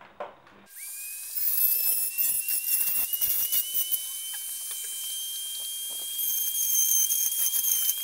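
Dremel rotary tool switched on about a second in, its high whine rising slightly as it spins up and then holding steady, with an irregular scratchy grinding as the bit cuts away plastic at the scooter's front axle so a washer can seat.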